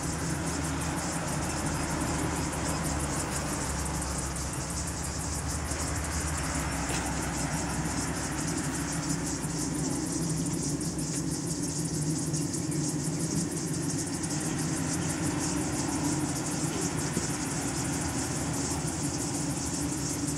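Honeybee colony humming steadily in an open top bar hive, a low, even drone. The bees are calm and unsmoked, not alarmed.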